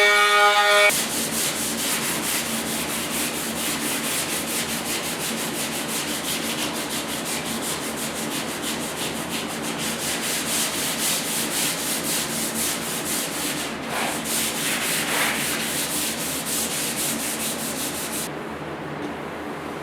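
A power tool's whine cuts off about a second in. Then comes steady back-and-forth hand sanding on a steel running board, a rhythmic rasp of several strokes a second. The strokes stop shortly before the end.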